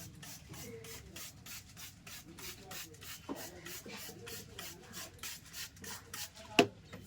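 Hands rubbing briskly over a person's hair and scalp during a head massage: rapid, even, scratchy strokes about three to four times a second. A single sharp click comes near the end and is the loudest sound.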